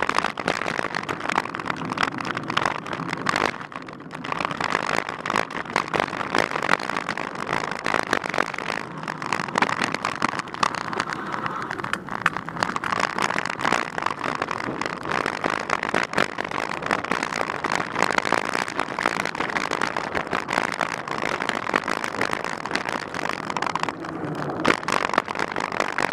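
Mountain bike rolling along a dry dirt trail: knobby tyres crunching over dirt and small stones and the bike rattling, a steady dense clatter of small clicks.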